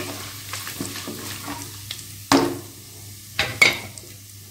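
Whole spices (fennel seeds, bay leaves, cloves, cardamom, cinnamon stick, star anise) sizzling in hot oil in an aluminium pressure cooker as they are stirred. There are three sharp clicks: one about halfway through and two close together a second later.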